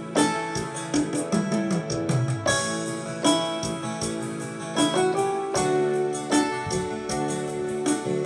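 Instrumental music without singing: electric keyboard playing sustained chords and a melody over a steady beat.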